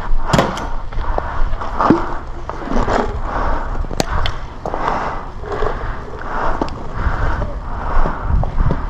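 A person walking: steady scuffing footsteps, about one every 0.7 seconds, with a low rumble underneath.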